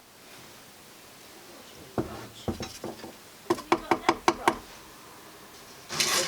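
Wood being knocked: a few separate strikes, then a quick run of about seven sharp knocks, as pieces of a plywood sheath are worked. A short scraping burst comes near the end.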